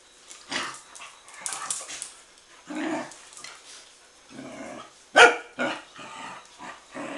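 Young dogs barking during rough play, in a string of short outbursts. The loudest, a single sharp bark, comes about five seconds in.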